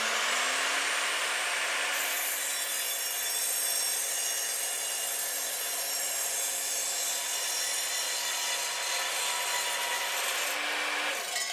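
Evolution R255SMS sliding mitre saw's multi-material blade cutting through a thick block of old timber. The motor finishes spinning up in the first second. The blade then bites into the wood from about two seconds in, and the cutting sound eases near the end as the blade comes through.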